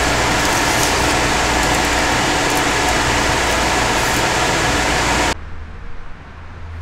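Steady road and engine noise of a car driving. It cuts off suddenly about five seconds in, leaving a quieter low steady hum.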